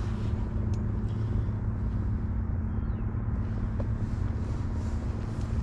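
A steady low mechanical hum over a constant background rumble.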